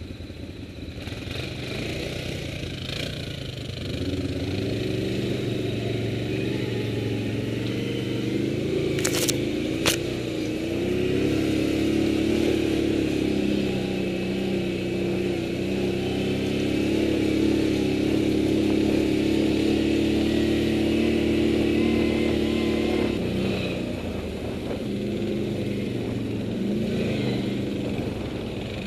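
Quad bike (ATV) engine pulling away and running at a steady pace, its note rising about four seconds in and again a few seconds later, then easing off near the end. Two sharp knocks about nine and ten seconds in.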